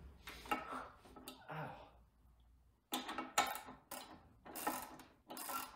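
Hard objects being handled and set down: a string of knocks, clinks and clatters, with a short lull about two seconds in and then a busier run of knocks.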